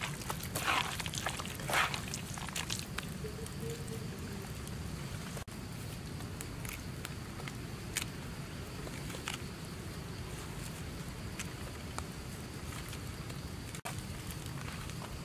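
Wet squelching of hands kneading a raw fish-roe mixture in a pan, a few squishes in the first two seconds. Then a steady low background rumble with scattered light clicks of handling.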